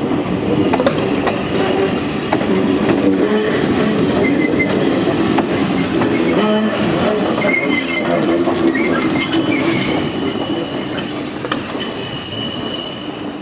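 Yoro Railway electric freight car towing a 600-series train set, rolling slowly over the rails with a low hum, wheel clicks over rail joints and high wheel squeal in the second half, fading slightly near the end.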